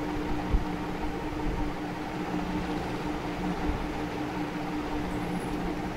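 Steady mechanical hum with a constant low tone, and a single soft knock about half a second in.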